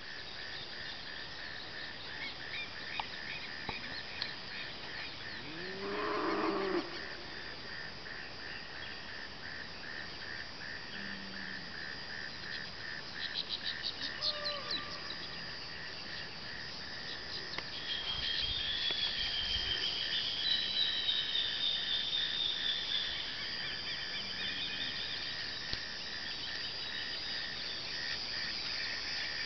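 Rural soundscape: a cow moos once, briefly, about six seconds in, over a steady rapid pulsing chirp. Birds call with quick high chips midway and sing a longer warbling song in the second half, the loudest part.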